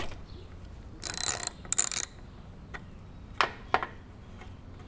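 Socket ratchet wrench clicking in two short runs as it backs out the bolt that holds the float bowl on a small-engine carburetor, followed by two sharp knocks near the end.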